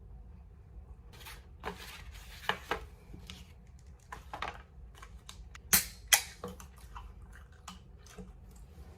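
Scattered small clicks and rustles of objects being handled, with two sharper clicks close together about six seconds in.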